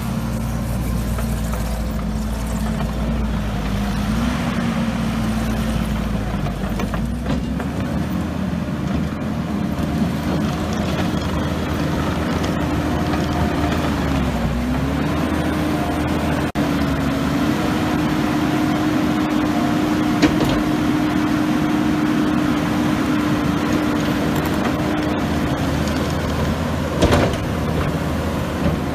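Kubota SVL90-2 track skid steer's turbo-diesel engine running steadily. Its pitch rises a little about four seconds in, dips briefly about halfway through, then holds a bit higher. A short sharp knock comes near the end.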